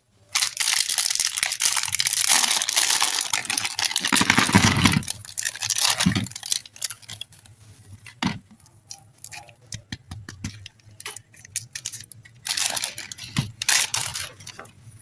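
A pack of soft air-dry clay being torn open, with a long stretch of tearing and crinkling of the wrapper for the first few seconds. Scattered rustles and clicks follow, then another short burst of crinkling near the end.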